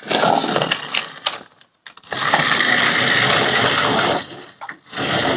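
Battery-powered Grave Digger RC monster truck toy driving: its small electric motor and plastic gearbox whir in three spurts, a short one, a longer one of about two seconds, and a brief one near the end.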